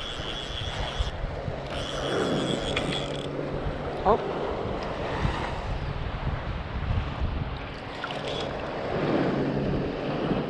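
Wind buffeting the microphone over shallow sea water lapping, with a steady low hum of a distant motorboat underneath. A short rising squeak about four seconds in.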